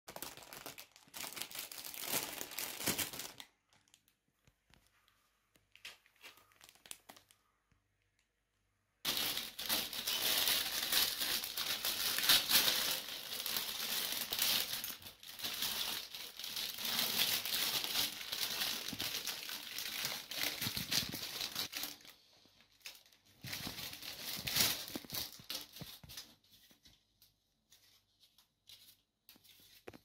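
Clear plastic packaging film crinkling as it is handled around a plastic vent cover, in bouts: a few seconds at the start, a quiet gap, then a long stretch of dense crinkling, a shorter bout, and lighter scattered rustles near the end.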